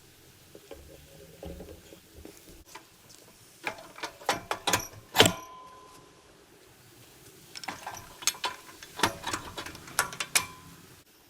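Metal hand tools clicking and clanking against the log splitter's fittings during reassembly, in two bursts of quick knocks. The loudest strike, in the middle, rings briefly like struck steel.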